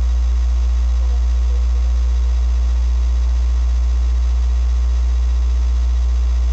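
Loud, steady low electrical hum on the recording, unchanging throughout, drowning out a faint voice in the background: the bad sound quality of the recording.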